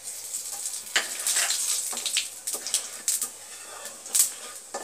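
Cumin seeds sizzling and crackling in hot oil as a tempering (jeera phoron), with many sharp pops, while a wooden spatula stirs them in the kadai.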